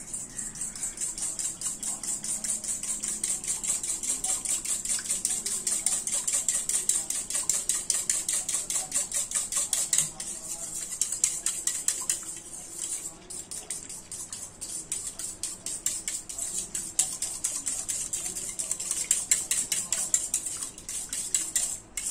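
Wire hand whisk beating curd, sugar and milk in a stainless steel bowl: rapid scraping and clicking of the wires against the metal, several strokes a second, with a brief pause about halfway.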